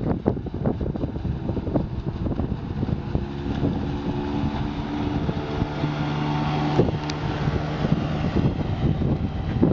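Outboard motor of a small fibreglass cabin boat running at planing speed as the boat passes, with wind buffeting the microphone. A steady engine hum comes through most clearly midway.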